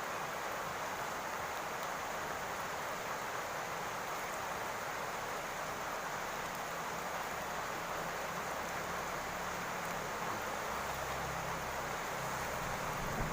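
Steady rain falling on a roof, an even hiss of drops with no breaks. A faint low rumble joins in the last few seconds.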